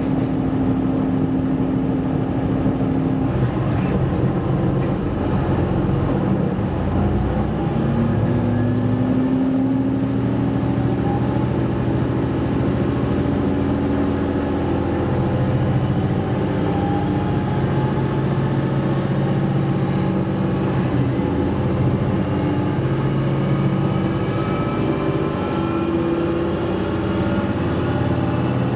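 KiHa 127 series diesel railcar heard from inside the cabin, its diesel engine running under power as the train gathers speed: a steady drone for the first few seconds, then several tones that climb slowly in pitch.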